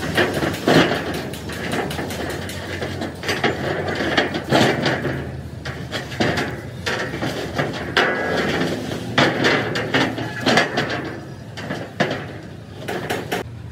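Irregular knocks and clanks of metalwork on steel plate: a string of sharp strikes at uneven intervals.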